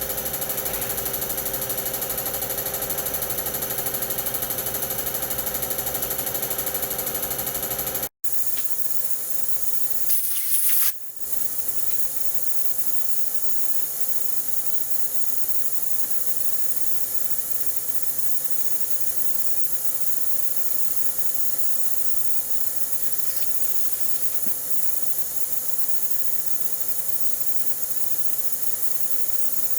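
A machine runs with a steady hum of fixed tones. After a cut, a short loud blast of hiss comes about ten seconds in, followed by an even steady hiss.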